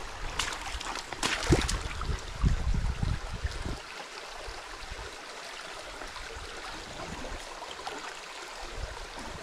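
Shallow tidal creek water running and trickling over mud and rocks. Over the first two seconds there are a few louder splashes and knocks from wading.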